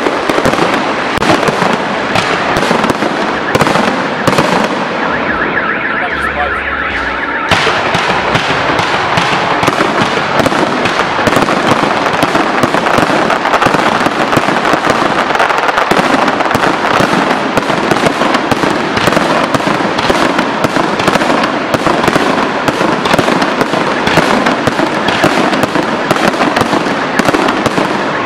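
Fireworks display: a rapid, unbroken barrage of aerial shell bursts, bangs and crackle. The sharpest crackle briefly thins about five to seven seconds in.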